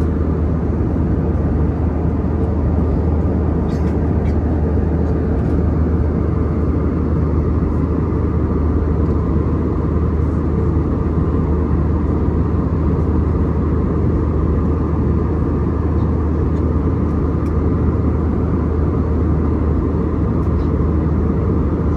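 Steady cabin noise inside an Airbus A320-200 in flight: a constant low rumble of the engines and rushing air, with a few faint ticks about four to five seconds in.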